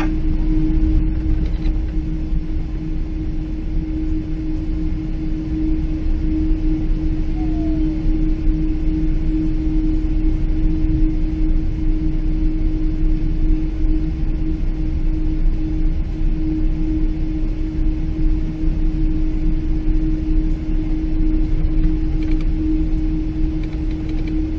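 Cabin noise inside a Boeing 777-300 heard from the rearmost seat: a steady low rumble with a constant hum running underneath.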